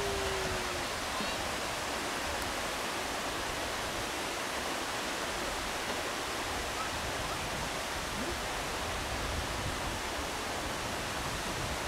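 Steady rush of water running through a terraced garden's stone water channel and cascades, an even hiss.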